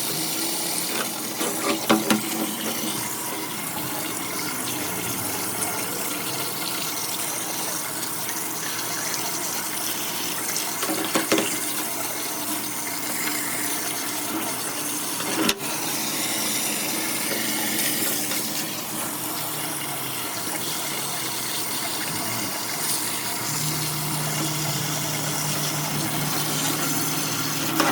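Running water washing out an excavator's cab air-conditioner filter, a steady rush with a few knocks. A low steady hum comes in a few seconds before the end.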